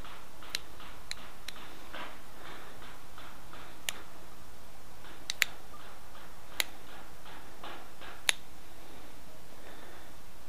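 Stone arrowhead being flintknapped with a pointed antler tool: soft, repeated scraping taps as the tip works the stone's edge, broken by about eight sharp clicks as small flakes snap off. The loudest clicks come a little past the middle and near the end.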